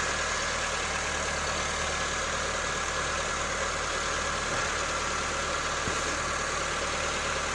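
A 2010 Honda Civic's engine idling steadily while still cold.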